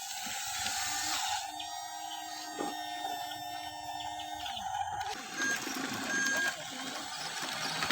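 Small electric motor of a remote-control toy vehicle whining steadily, then winding down about five seconds in.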